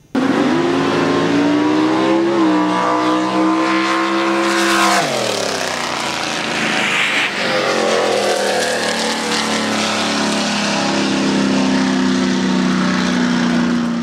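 Loud racing-car engine sound at high revs. One engine note holds steady, then drops sharply about five seconds in, like a fast car going by. Rougher engine noise follows, and a steady engine tone runs through the last few seconds.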